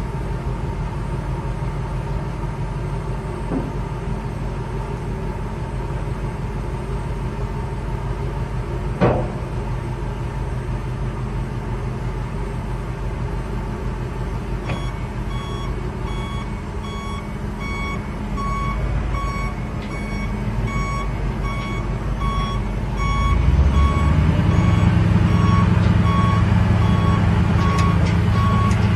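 1998 Ford F700 dump truck's 7.0L gas V8 running steadily. About halfway through, its reverse alarm starts beeping evenly, about one and a half beeps a second. Some seconds later the engine speeds up and gets louder under the beeping, with a single sharp knock heard earlier.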